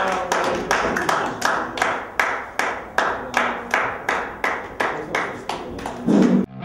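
Audience clapping in unison, a steady rhythm of about three claps a second, with a brief loud burst of sound near the end.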